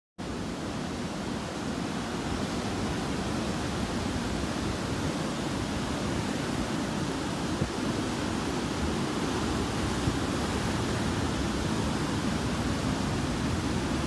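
Heavy surf from a rough sea breaking and washing up over the beach: a steady rush of water.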